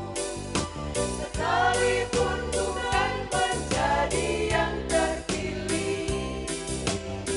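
A small vocal group singing a Christian song in harmony over an instrumental accompaniment with a regular beat.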